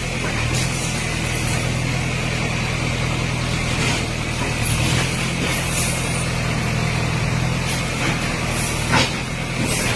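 Diesel engine of a demolition bulldozer running steadily at a constant pitch, with a few short knocks scattered through.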